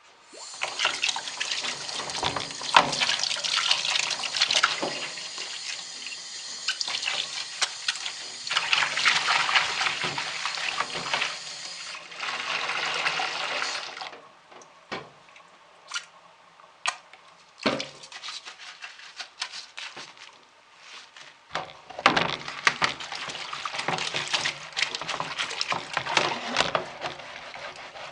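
Tap water running into a sink as ventilation-fan parts are washed under it. The flow stops about halfway through, leaving scattered knocks and clatters of handling. A few seconds later the water runs again.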